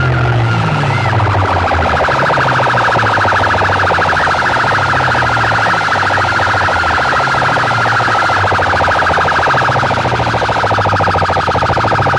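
A stacked DJ sound-box rig blasts a loud, siren-like electronic tone over a bass line: a fast buzzing pulse in the middle range, with the bass notes shifting in steps underneath.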